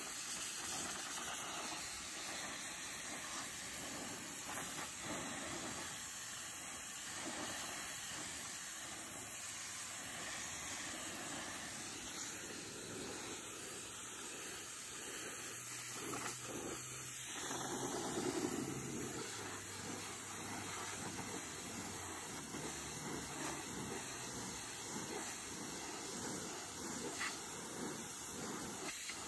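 Pressure washer jet spraying a white wooden picket fence, a steady hiss of water striking the boards as it strips off green growth.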